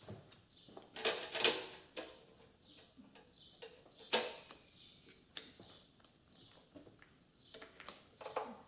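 Scattered knocks, clicks and rustling from hands working parts around a motorcycle engine and its frame, with the loudest knocks about a second in and about four seconds in.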